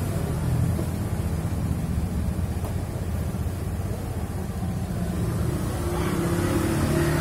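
Washing machine's wash motor running with a steady low hum, a higher tone joining in near the end.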